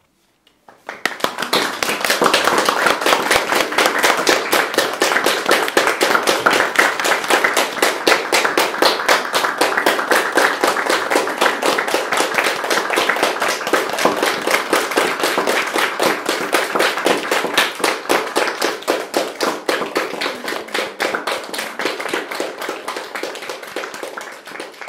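A small audience applauding: quick, dense clapping that starts about a second in and tapers off near the end.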